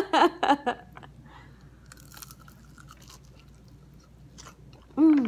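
A person chewing a bite of crispy fried egg roll: soft, scattered crunches with short pauses between them.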